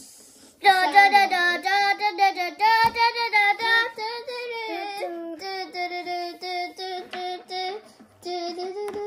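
A child's voice making sing-song battle sounds for the toy fight: a rapid chain of short pitched syllables held on a few notes, with a brief break near the end.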